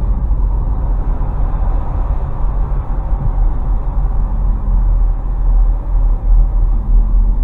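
Steady low rumble of a vehicle in motion: road, engine and wind noise.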